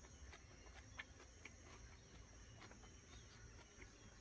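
Near silence: faint outdoor background with a steady high hiss and a few faint small clicks.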